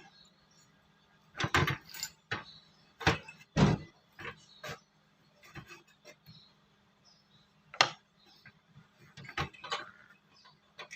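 Metal parts of a power steering gearbox clinking and knocking irregularly as they are handled and turned over during reassembly, with a faint steady hum underneath.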